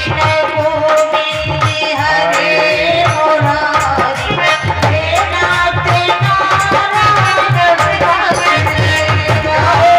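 Indian music with tabla keeping a steady rhythm under a held, moving melody, heard over a loudspeaker system.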